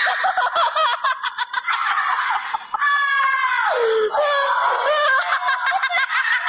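High-pitched voices laughing and screaming, with quick bursts of laughter at first and a long shriek about three seconds in that drops away in pitch.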